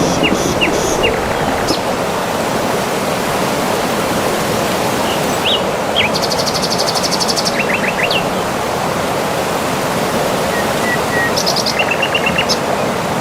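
Waterfall rushing steadily, with birds chirping over it: scattered short chirps, a fast high trill about halfway through, and a quick run of repeated notes near the end.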